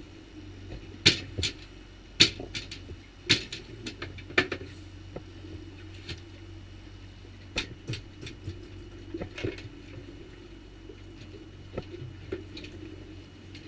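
Irregular sharp knocks and clatter of gear being handled on an aluminium boat's deck, mostly in the first few seconds with a few more later, over the steady low hum of an outboard motor running at trolling speed.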